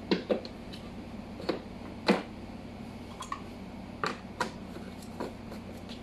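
Hard plastic clicks and knocks as a pleated HEPA cartridge filter is handled and fitted onto the plastic lid of a Black+Decker wet/dry vacuum, about eight to ten sharp, irregular taps, two close together at the start and the loudest about two seconds in.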